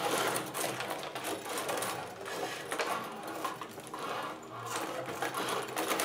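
Rod hockey game in play: a rapid, irregular clatter of the rods being pushed and twisted, the player figures spinning and the puck clicking around the rink.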